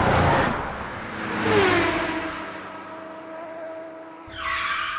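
A fast vehicle rushing past, its pitch dropping as it goes by and the sound fading away, with a second short burst of a higher, engine-like note near the end.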